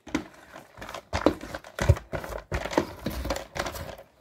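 A hand working chopped onion around whole raw chickens in a large aluminium pot: irregular rustling and handling noises, with a dull knock against the pot about two seconds in.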